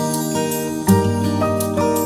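Background music: acoustic guitar playing plucked and strummed chords that change every half second or so.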